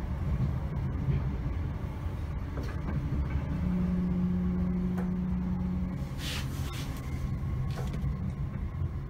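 Class 321 electric multiple unit running, heard from inside the carriage: a steady low rumble, with a steady hum from about three and a half seconds in to about six seconds. A short hiss of air follows at about six seconds, and a weaker one near eight seconds.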